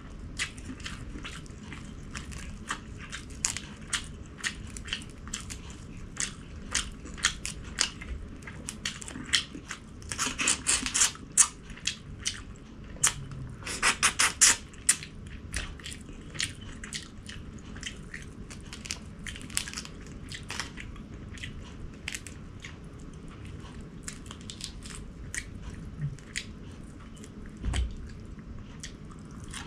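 Close-miked chewing and mouth clicks of a person eating, a steady run of small wet clicks with two denser flurries of clicks about ten and fourteen seconds in.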